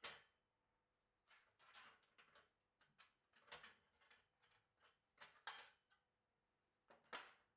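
Faint, scattered clicks and light knocks of hands and gloves handling a steel bicycle frame and fork in a workstand, about seven in all, the loudest right at the start and another near the end.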